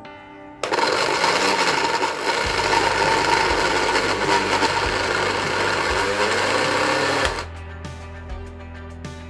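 Small electric food chopper running for about seven seconds, grinding a paste of ground beef and crushed ice with garlic and fried shallots. It starts about half a second in and cuts off shortly before the end.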